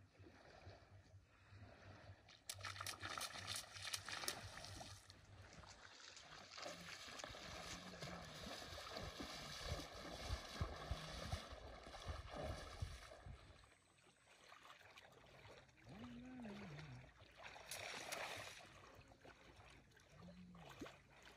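Faint sloshing and splashing of water as people wade through a shallow river, busiest in the first half and quieter for the last several seconds.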